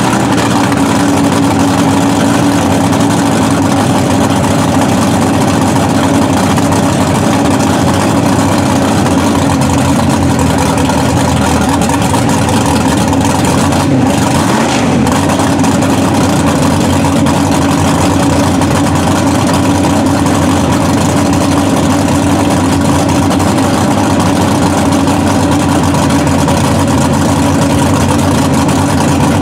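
Loud big-block Chevy V8 of a 900+ hp mud truck running steadily, without revving up, while the truck sits stuck in the mud hole.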